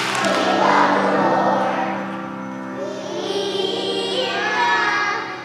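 Children's choir singing a song with instrumental accompaniment; the music falls off near the end.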